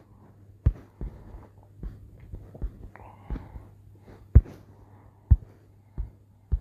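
Fingertip taps on a phone's touchscreen while erasing in a drawing app: about eight dull, irregular taps, roughly one a second, over a low steady hum.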